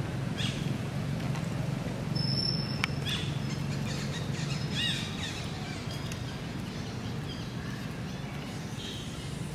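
Outdoor ambience: a few short, high, arched chirps scattered through it, the clearest about five seconds in, over a steady low hum.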